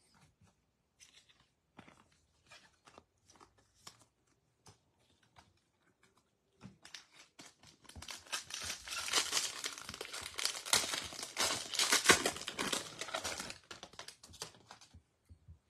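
A trading-card pack wrapper being torn open and crinkled for several seconds, starting about eight seconds in, after a few faint scattered clicks of cards being handled.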